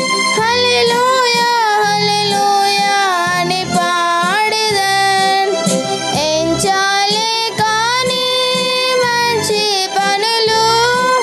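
A girl sings a Telugu devotional song to electronic keyboard accompaniment, with held chords under her melody and a steady low beat.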